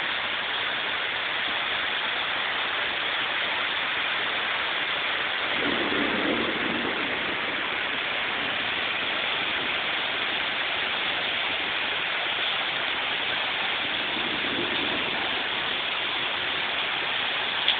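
Torrential rain pouring down steadily, a dense hiss of heavy rain on surfaces. A low rumble swells briefly about six seconds in and again near the end, as of a vehicle passing through the wet.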